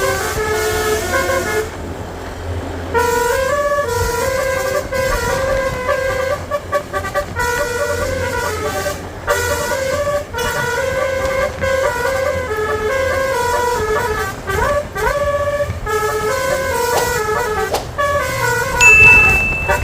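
Bus's Basuri multi-tone 'telolet' horn playing a melody, its notes stepping up and down in short phrases, over a low engine rumble. It breaks off briefly about two seconds in. Near the end a loud high steady tone sounds for about a second.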